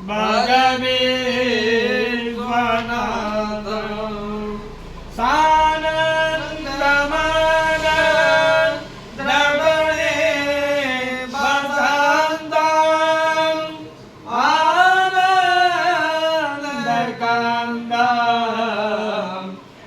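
A solo voice singing a Sanskrit devotional hymn to Shiva in long, drawn-out, melodic phrases with short pauses between them.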